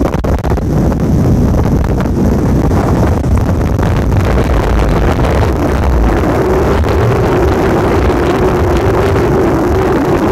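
Strong storm wind buffeting the microphone in a steady, heavy rumble. About six seconds in, a steady droning hum joins underneath.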